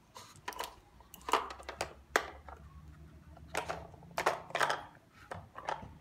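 Irregular plastic clacks and rattles as a dog noses and pushes the cone-shaped lids and ball of a plastic puzzle feeder toy, about a dozen sharp knocks spread unevenly over the few seconds.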